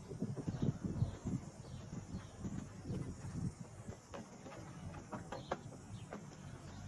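Outdoor forest ambience: a few faint high chirps over irregular low thuds and rumble.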